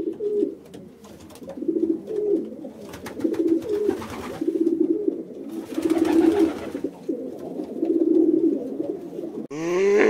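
Domestic pigeons cooing: a run of low, rolling coos repeated every second or so. Near the end a different, louder sound cuts in.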